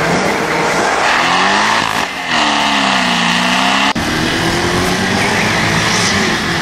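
Corvette V8 engine revving, its pitch dipping and climbing again, with abrupt breaks about two seconds in and again around four seconds.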